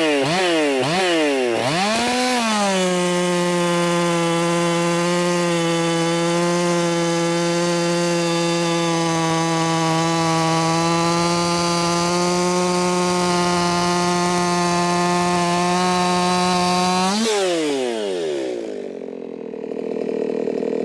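Modified Echo 4910 two-stroke chainsaw blipping its throttle a few times, then held wide open through a cut in wood at a steady high pitch for about fifteen seconds, dropping back toward idle near the end. It is tuned lean enough to spin faster in the cut than the owner likes.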